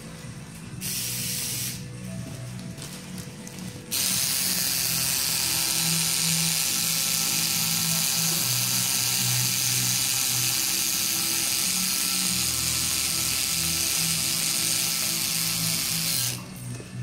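Tattoo machine buzzing as it works ink into skin: a short run about a second in, a pause, then a steady run from about four seconds in until just before the end. Background music plays underneath.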